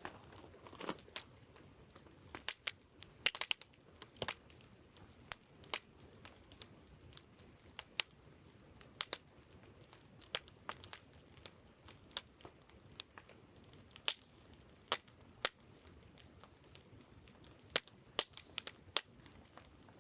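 Wood campfire crackling, with sharp irregular pops and snaps from the burning logs, some close together and some a second or more apart, over a faint steady background hiss.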